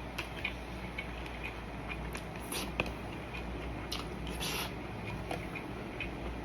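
A person eating shawarma rice with ground beef: soft chewing and mouth sounds with scattered small clicks, over a steady low hum.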